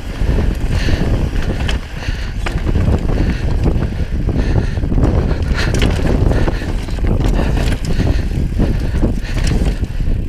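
Wind buffeting the GoPro's microphone as a mountain bike rolls down a rocky dirt trail, with frequent short knocks and rattles from the tyres and bike going over rocks.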